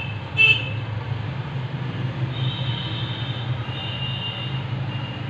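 Hot air rework station blowing on low air: a steady fan hum with a faint high whine partway through, and one sharp click about half a second in.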